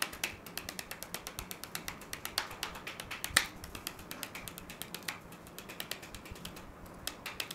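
Fingertip tapping rapidly on a piece of cardboard resting on a table, about ten taps a second, with a few harder taps among them. The tapping shakes iron filings on the card into the pattern of a horseshoe magnet's field underneath.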